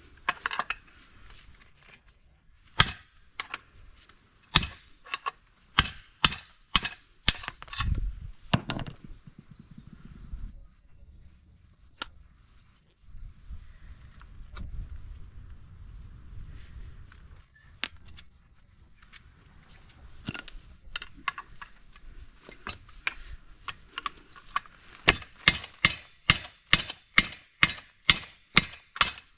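Hammer blows during the swingarm bushing job: single strikes at uneven intervals, then a quick steady run of about three to four strikes a second near the end, typical of driving a bushing out of or into its bore.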